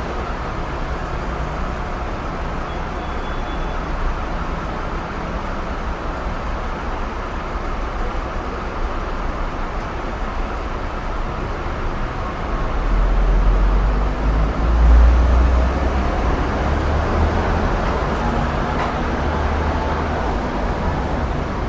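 Busy city street traffic: a steady wash of passing cars, buses and trucks. About twelve seconds in, a heavy vehicle's deep engine rumble swells up and passes, loudest near the middle of its pass, then eases back into the general traffic noise.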